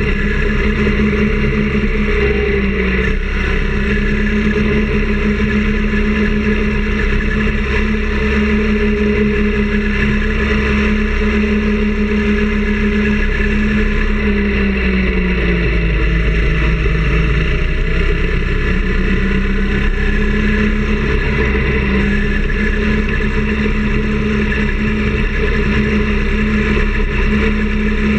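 Minibike's small engine running at a steady cruising speed. Its pitch drops about halfway through as it slows, then rises again as it picks back up, over a steady rush of wind and road noise.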